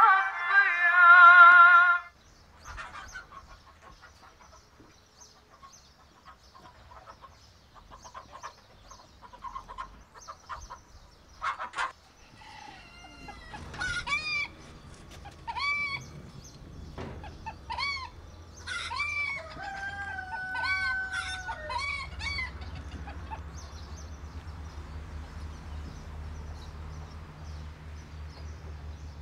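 Chickens calling and a rooster crowing: a run of short rising-and-falling calls every second or two, ending in a held crow about two-thirds of the way through. A sharp knock comes just before the calls, and a low steady hum fills the last stretch.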